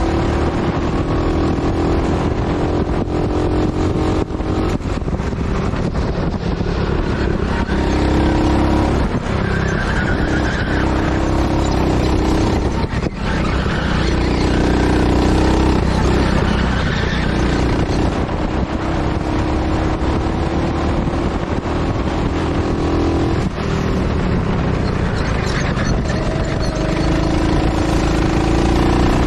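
Go-kart engine running hard and lapping, its pitch climbing slowly as it gathers speed and dropping sharply several times as the throttle comes off for corners, over a heavy low rumble.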